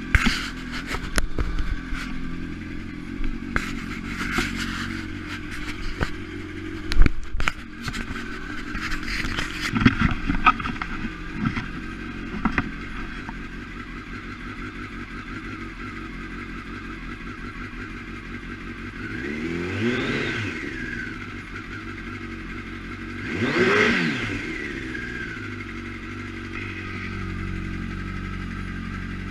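Kawasaki ZX-10R's inline-four engine idling, blipped twice about twenty and twenty-four seconds in, the second rev higher and louder. Scattered clicks and knocks through the first dozen seconds.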